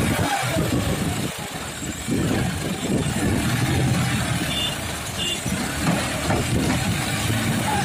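John Deere 5050D tractor's three-cylinder diesel engine running under load as the tractor pulls out of soft mud on cage wheels; the engine sound dips briefly about a second in and picks up again at about two seconds.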